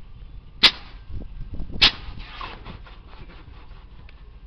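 Air-bag suspension valves on a 2004 GMC Yukon firing twice, about a second apart, as the truck is hopped on the switches: two sharp blasts of compressed air, the second trailing off in a short hiss.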